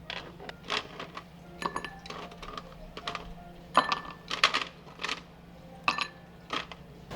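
Plates and cutlery clinking and knocking as they are handled: a run of about fifteen sharp clinks, some ringing briefly.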